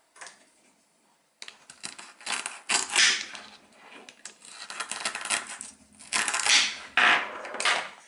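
Velcro ripping as the pieces of a toy cucumber are cut apart with a toy knife: several crackly tears one after another.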